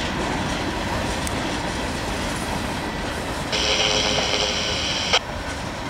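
Cars of a manifest freight train rolling past. A high-pitched wheel squeal starts a little past halfway and cuts off suddenly after about a second and a half.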